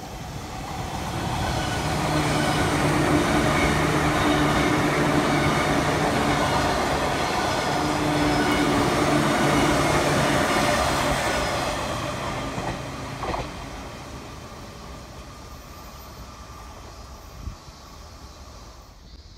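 JR 185 series electric multiple unit passing at speed: rumble and wheel-on-rail clatter with a steady motor hum, building over the first two seconds, holding for about ten, then fading away as the train moves off.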